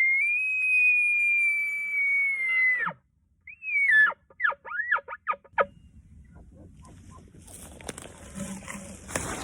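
Elk bugle: one long, high whistle that falls off abruptly about three seconds in, then a short squeal and a quick run of chuckles. Faint rustling follows.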